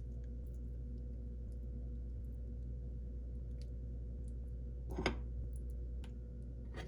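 Quiet room tone with a steady low hum, a few faint ticks, and a sharper click about five seconds in and another near the end.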